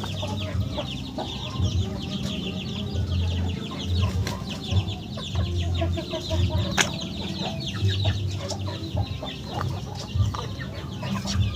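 Chickens clucking continuously, many calls overlapping, with intermittent low bumps and a single sharp click about halfway through.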